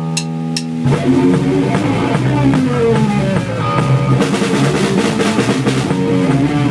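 Rock band playing electric guitar and drum kit. A held guitar chord rings at first, then about a second in the drums and guitar start a driving rhythmic part, with cymbals coming in around four seconds in.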